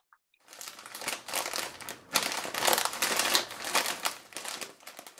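Dense crinkling rustle of something being handled, made of many quick crackles close together. It starts just after the beginning and runs about five seconds, loudest in the middle.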